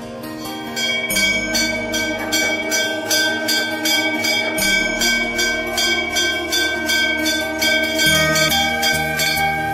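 Hanging brass temple bell rung by hand, struck over and over at about three strokes a second from about a second in, its ringing tone held between strokes. Background music plays underneath.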